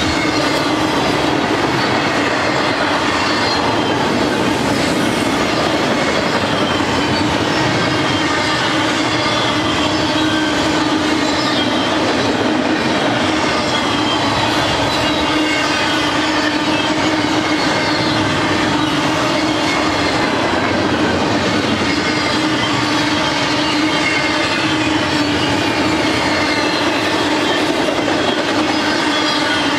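Double-stack intermodal container well cars rolling steadily past: a continuous loud rumble and clatter of steel wheels on rail, with a steady tone running under it.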